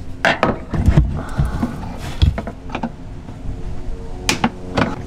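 Background music with held tones, with a few sharp clicks scattered through it.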